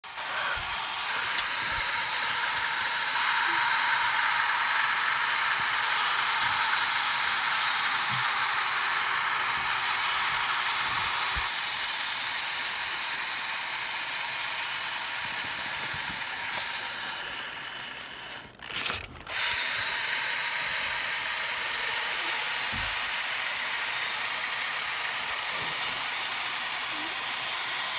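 A continuous, harsh, hissing mechanical noise, mostly high-pitched, that cuts out briefly twice about eighteen to nineteen seconds in and then carries on.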